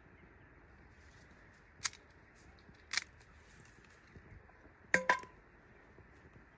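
Cooking utensils knocking and clinking: two sharp single knocks about a second apart, then a double clink about five seconds in that briefly rings with a clear metallic tone.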